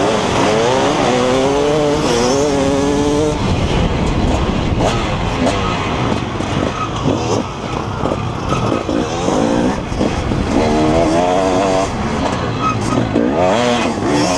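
KTM 300 EXC single-cylinder two-stroke enduro bike engine revving hard under acceleration, its pitch rising and dropping repeatedly as it pulls through the gears. In the middle the throttle chops on and off with knocks over rough trail, and near the end it revs up again.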